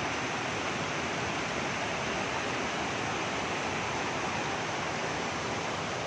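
Muddy monsoon floodwater rushing over a concrete weir and tumbling down in white water: a steady, unbroken rush.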